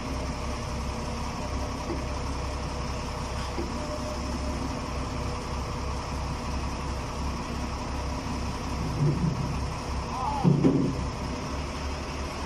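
Forklift's diesel engine running with a steady, pulsing low drone as it carries a heavy machine. Two short shouts of a voice come near the end.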